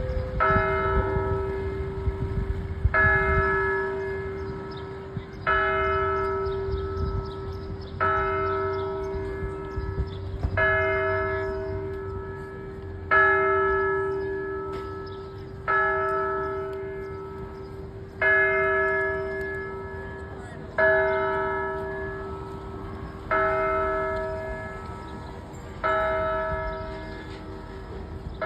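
A single church bell tolling slowly and evenly: about a dozen strokes, one every two and a half seconds, each ringing out and fading before the next.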